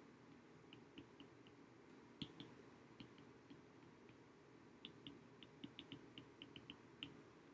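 Faint clicks and taps of a stylus tip on an iPad's glass screen during handwriting, in irregular clusters, with the busiest run of taps near the end.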